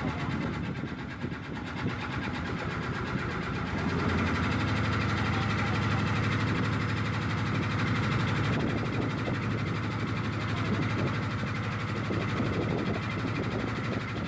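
Motor of a small tour boat running steadily underway, a little louder from about four seconds in.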